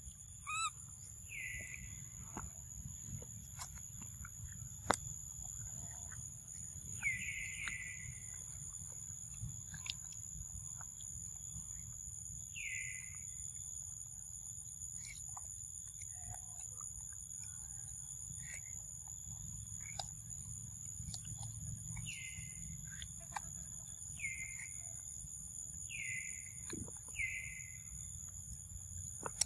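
Forest ambience: a steady high-pitched insect drone, with a bird giving a short falling call every few seconds and a few faint clicks.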